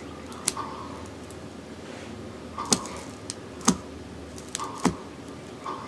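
A few sharp clicks or knocks at uneven intervals over a low steady hum, with short buzzy tones between them.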